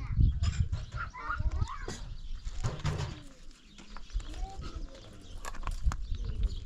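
Livestock bleating in short wavering calls, with a few sharp knocks and a brief voice fragment.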